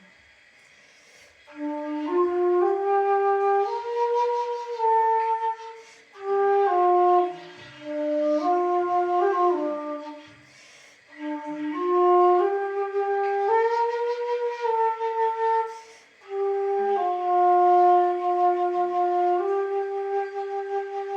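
Xiao, the Chinese vertical end-blown bamboo flute, playing a slow solo melody in phrases with short breaks for breath between them. A long note is held steadily near the end.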